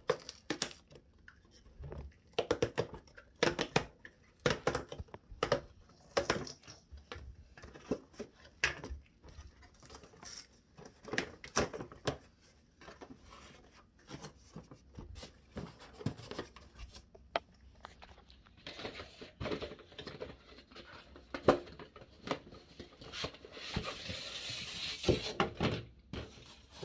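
Cardboard box being opened by hand: irregular taps, knocks and scrapes of the box flaps and packaging, then a longer rasping scrape near the end as the inner tray slides out of the box.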